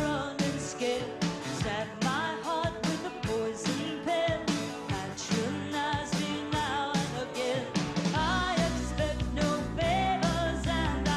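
Country-rock song with a woman's lead vocal over a band with a steady drum beat; a heavier bass line comes in about eight seconds in.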